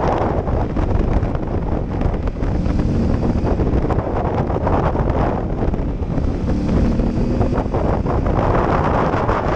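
Steady wind buffeting on a helmet-mounted camera at riding speed, with a twin-cylinder adventure motorcycle's engine running underneath and its note coming through more clearly about three and seven seconds in.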